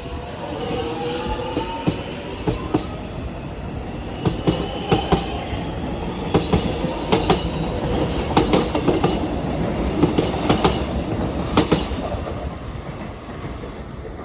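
X'Trapolis electric train pulling away, its traction motors whining and rising in pitch over the first couple of seconds. Then the wheels click over the rail joints in quick groups as the cars pass, and the sound fades near the end.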